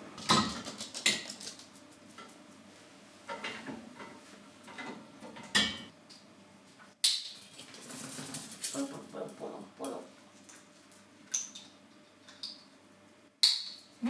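Household handling noises: a handful of sharp knocks and clicks, loudest near the start, about seven seconds in and near the end, with lighter metallic clinks and rustling between them.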